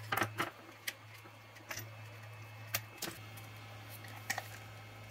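Scattered light clicks and taps of a small screwdriver against a plastic display housing as it is worked at, over the steady low hum of a hot-air rework gun.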